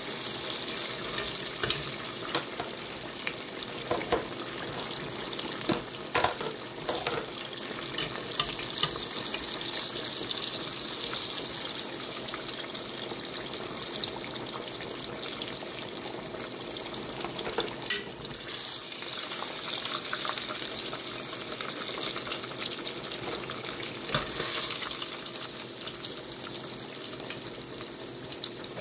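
Battered catfish fillets deep-frying in hot oil: a steady sizzle full of small crackles and pops.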